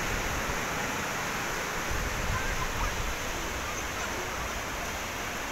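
Surf on a sandy beach: small waves breaking and washing up the sand, a steady rushing hiss with a slightly heavier low rumble about two seconds in.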